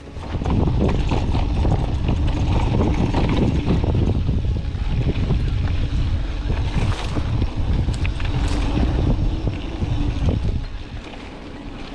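Wind buffeting the camera microphone: a loud, low rumble that eases about ten and a half seconds in.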